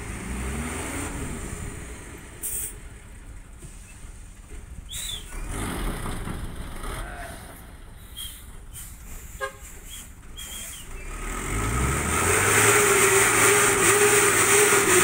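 Dump truck's diesel engine revving up and running hard from about 11 seconds in, much louder than the faint outdoor sounds and scattered knocks before it.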